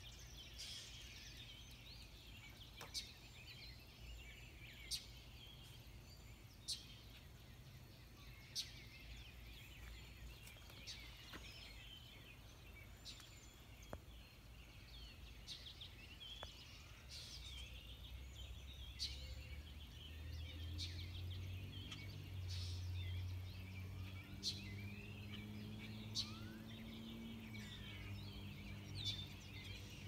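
Several birds chirping and calling at once, with one sharp high call repeated about every two seconds. About two-thirds of the way through, a low droning hum swells underneath.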